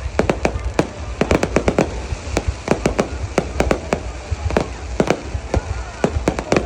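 Fireworks display: shells bursting in a rapid, irregular series of sharp bangs, several a second, over a steady low rumble.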